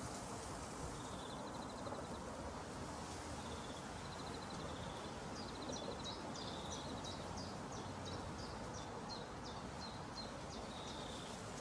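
Outdoor ambience: a steady low background noise with small birds calling, a couple of short high trills early on, then a run of quick repeated chirps, about three a second, from about the middle onward.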